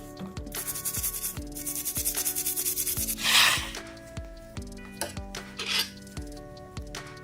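Fast back-and-forth rubbing strokes against a surface, with a louder hissing burst about three seconds in and a shorter one near six seconds, over background music with a steady beat.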